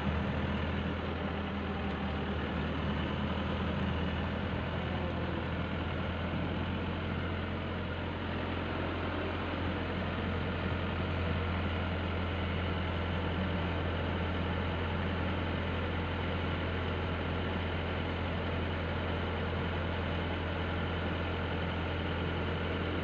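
Wheel excavator's diesel engine running steadily with a low, even hum, heard from inside the operator's cab.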